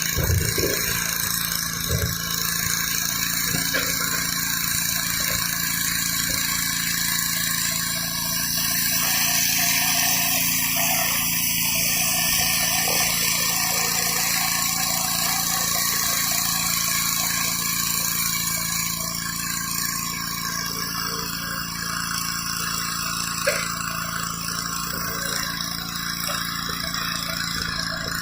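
Gas-engine pressure washer running steadily, with the hiss of its high-pressure water jet blasting across concrete. A single sharp tick sounds late on.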